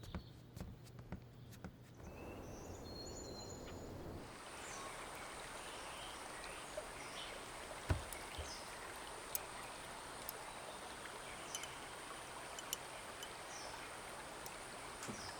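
Countryside ambience: a steady rushing like running water sets in about two seconds in, with scattered short bird chirps. A thin, steady high-pitched tone joins it a couple of seconds later.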